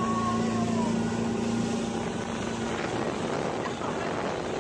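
Speedboat engine running steadily under way, with a constant rush of wind and water.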